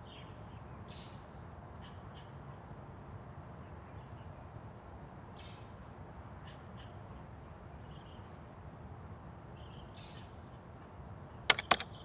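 Birds calling now and then: short, high calls one to two seconds apart over a steady low hiss. Near the end, quick clicks of typing on a laptop keyboard begin.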